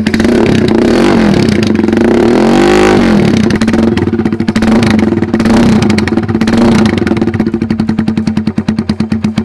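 Yamaha Scorpio 225cc single-cylinder engine of a custom bobber idling loudly through a custom twin-outlet 'bambu racing' exhaust, blipped up and back down once about two seconds in.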